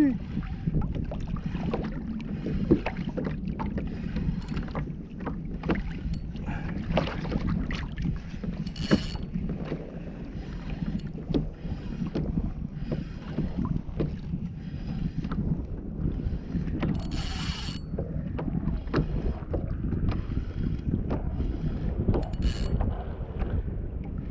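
Wind buffeting the microphone and water lapping against a kayak hull, with scattered clicks and knocks from a spinning reel being wound while a fish is played on a bent rod. A brief higher buzz comes about nine seconds in, and a longer one of about a second around seventeen seconds.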